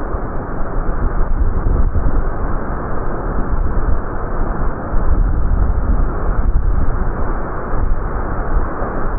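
Quarry blast, slowed down: a loud, continuous deep rumble of the detonation and the rock and debris thrown from the blast face.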